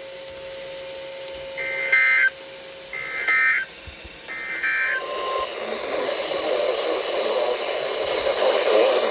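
NOAA Weather Radio broadcast sending three short bursts of EAS SAME digital data tones, about a second apart: the end-of-message code that closes an alert. Faint voice from the radio follows from about halfway.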